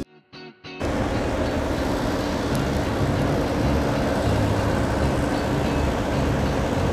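Amphibious tour bus's engine running steadily at idle, a low even rumble that starts about a second in after a brief silence.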